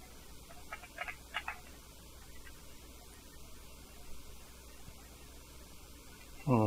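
Faint clicks of the metal fittings of a lighting tripod stand being handled and fitted together about a second in, over a low steady hum. Near the end, a short, louder voiced sound from the man, falling in pitch.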